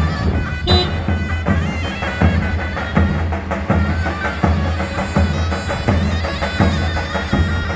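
Turkish davul bass drum beating heavy strokes about every three-quarters of a second under a shrill, reedy wind-instrument melody, in folk music.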